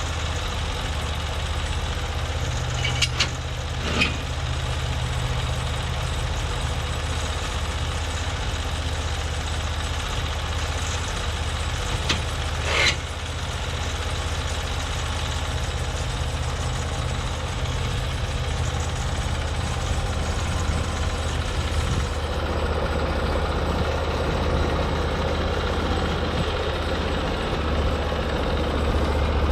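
Norwood MX34 portable bandsaw mill's engine running steadily, with a few brief sharp clicks or knocks about three, four and twelve seconds in; the tone of the running shifts about two-thirds of the way through.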